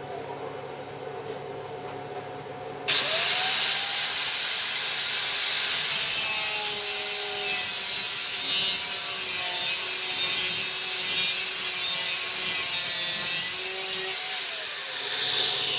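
A power tool cuts through material: a loud, harsh hiss with a wavering squeal starts suddenly about three seconds in and runs on steadily for about twelve seconds. Before it comes in there is only a quieter steady hum.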